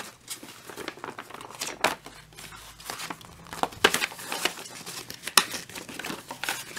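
Trading-card structure deck packaging being worked open by hand: irregular crinkling and rustling with sharp crackles and tearing.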